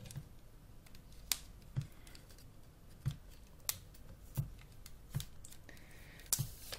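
Packaging being handled and opened: scattered sharp clicks and snips, about eight or nine of them at irregular spacing, with a soft rustle near the end.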